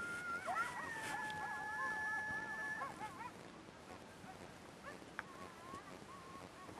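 An animal's high, wavering whine, held for about two and a half seconds, then a few fainter, shorter whines.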